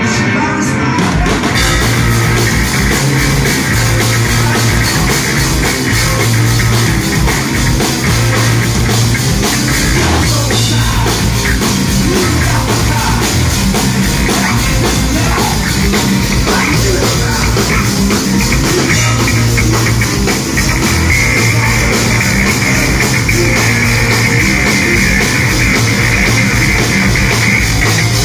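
Loud rock music from a live band: drum kit with cymbals, electric guitar and bass. The full kit comes in about a second in over the guitar, and a held high guitar tone joins in the last third.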